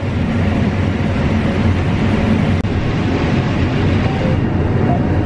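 John Deere S780 combine running while harvesting corn: a steady low engine drone under an even mechanical rush from the header and threshing machinery.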